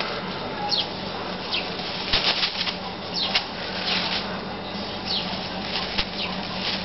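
Straw broom bristles swishing and scratching across concrete in short, irregular strokes.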